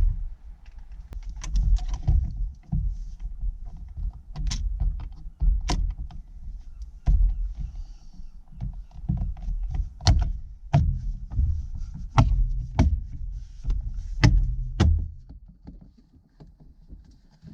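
Irregular clicks and knocks with low thumps, of car parts being handled and fitted back together by hand, dying away near the end.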